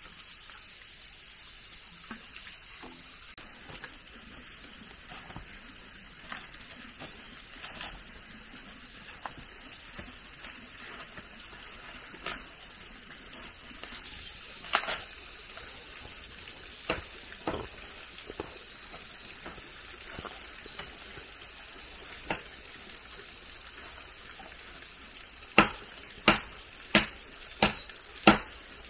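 Scattered light knocks and clicks over a faint steady hiss, then near the end a run of sharp, evenly spaced chopping strikes, about three every two seconds.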